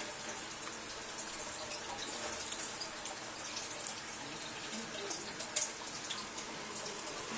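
Soft rustling and scuffling of a German Shepherd puppy and a small dog wrestling in play, over a steady hiss, with a few faint clicks.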